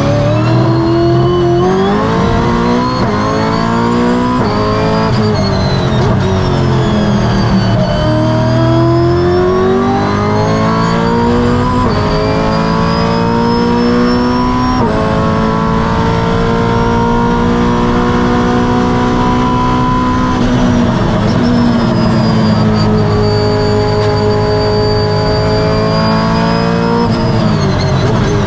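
Brabham BT62's naturally aspirated V8 racing engine at full throttle, heard from on board: the revs climb and snap down with each of several upshifts in the first fifteen seconds, hold high, then fall away about twenty seconds in before climbing again near the end.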